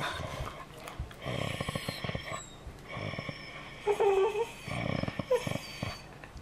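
Rough collie grumbling and moaning in several separate bouts, with a short whine about four seconds in: the dog asking to be let out.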